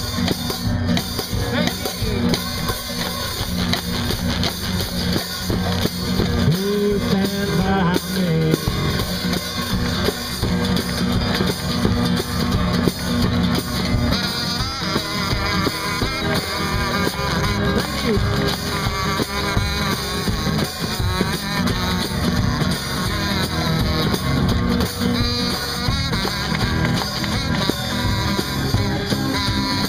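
One-man band playing a song: strummed acoustic guitar over a steady beat of drum and cymbals worked from the rig on his back, with a kazoo carrying the tune in places.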